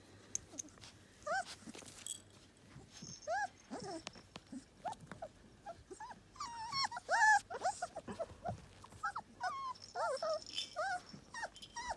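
Young puppies in a litter squeaking and whimpering, many short high squeals one after another, busier from about six seconds in.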